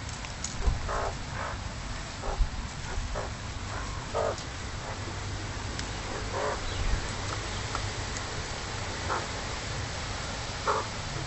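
Magpies giving about ten short, scattered calls, over steady low background noise.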